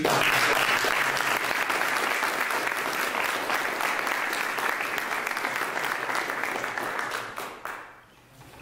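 Audience applauding, with many hands clapping at once, dying away near the end.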